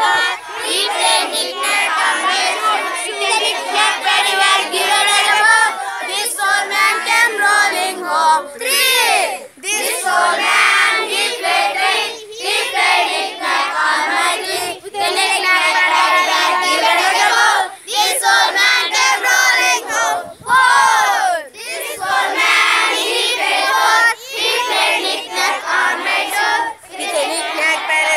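A group of children singing together in unison, loud and close, with brief pauses between lines.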